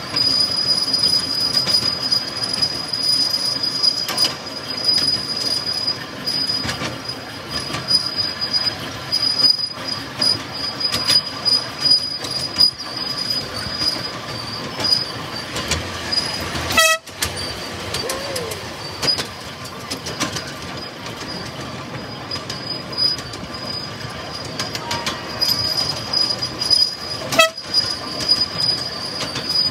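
Ride-on miniature train running along its narrow-gauge track: a continuous wheel rumble with frequent clicks over the rail joints and a thin, steady high whine through most of it that fades in the middle. The sound cuts out for an instant twice in the second half.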